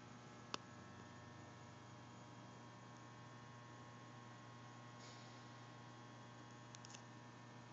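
Near silence with a steady electrical mains hum. A single sharp click about half a second in, and a few faint ticks near the end.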